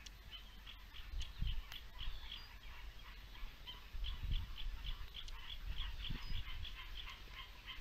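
An animal calling in a rapid, even run of short high chirps, about four a second, with a few low thuds mixed in.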